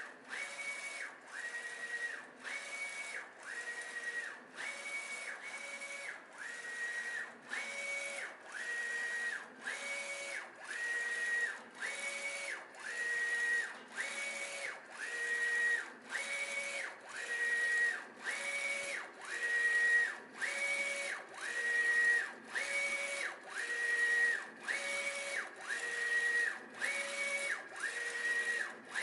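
X3040DH A3 direct-to-garment printer printing, its print-head carriage sweeping back and forth about once a second. Each pass carries a whining motor tone whose pitch shifts slightly from pass to pass, with a short pause at each reversal.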